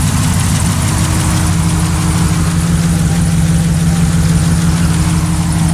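Freshly rebuilt 6.0 LS V8, swapped into a Chevrolet Trailblazer, idling steadily on its first run after installation.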